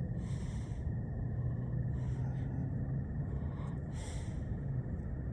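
A person breathing close to the microphone, with two audible breaths or sniffs, one about half a second in and one about four seconds in, over a steady low hum.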